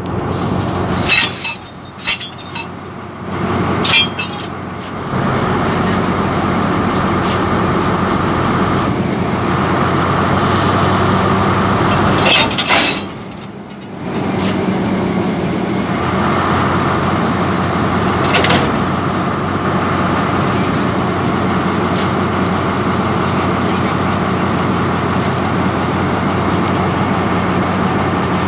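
Diesel locomotive engine idling steadily, with a constant rushing noise over it. A few short, sharp clatters and bursts come in the first few seconds and again about 12 seconds in.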